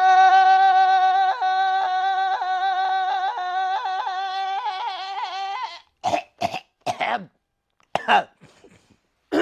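A man's voice holding one long sung note that wavers and warbles near the end and breaks off about six seconds in, followed by several short coughs.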